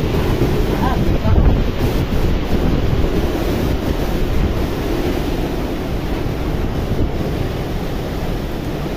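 Strong typhoon wind blowing and buffeting the microphone, with a louder gust about a second and a half in.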